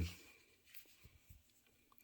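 Faint light clicks and taps of small cable accessories being handled, near quiet after a spoken word trails off.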